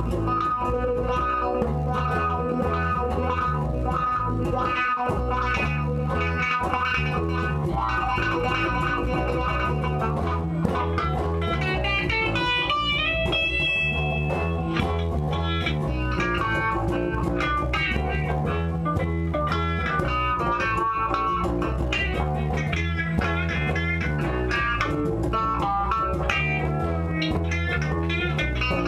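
Electric guitars playing together: a lead guitar picking melodic lines over a steady low accompaniment, with a bent high note about halfway through.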